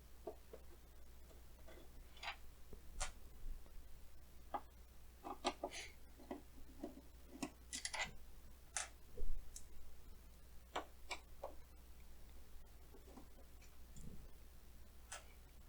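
Faint, irregular clicks and ticks of a Phillips screwdriver turning the screws that hold the case of a Korg CX-3 organ, as the screws are worked loose.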